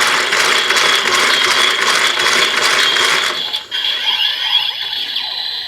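DX Build Driver toy belt with its lever being cranked: a rapid whirring ratchet over the belt's electronic standby tune. The cranking stops about three and a half seconds in, and the electronic tune carries on more quietly.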